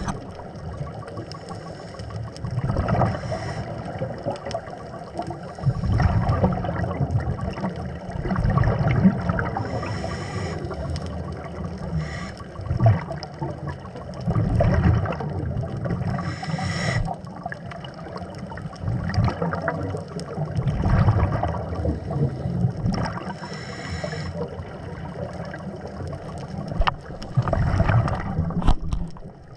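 Underwater scuba breathing: exhaled bubbles from a diver's regulator gurgle and rumble in surges every few seconds over steady muffled water noise.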